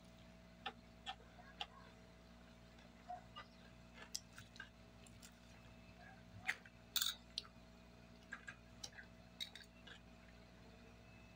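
A fork clicking and scraping against a ceramic plate during eating, with scattered light taps and a louder cluster of clinks about seven seconds in, over faint chewing.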